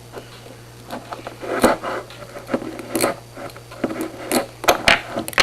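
Homemade lock pick and tension wrench working the pin tumblers of a Master padlock: irregular metallic scratching and clicking.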